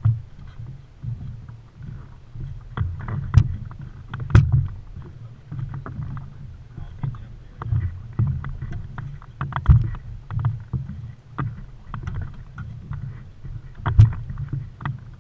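Water slapping against a small fishing boat's hull, a low uneven rumble, with sharp knocks and thumps every second or so from the hull and deck as the boat rocks and gear is handled; the loudest knocks come about 3, 4, 10 and 14 seconds in.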